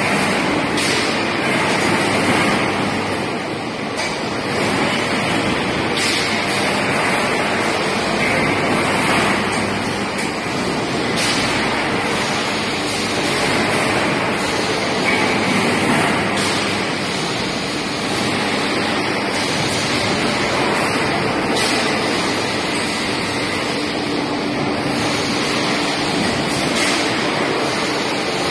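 Steady industrial noise of an electric overhead bridge crane (Diapem, 15-tonne) hoisting and travelling with a steel coil, with a few sharp knocks. A low hum comes in during the last few seconds.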